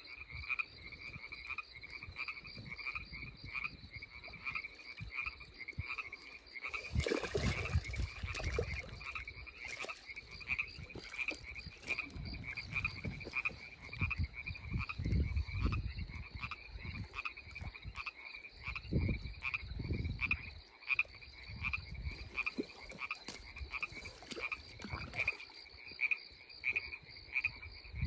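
Frogs calling at night, one steady call repeated evenly a little under two times a second. Low thumps of handling come at times, and a louder rustle comes about seven seconds in.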